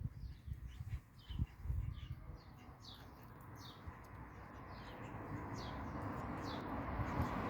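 Small birds chirping: short, high, falling chirps about twice a second, with a few low thumps early on and a hiss that builds steadily louder through the second half.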